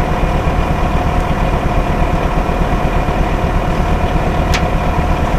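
Engine idling steadily: an even low rumble with a steady hum, and one sharp click about four and a half seconds in.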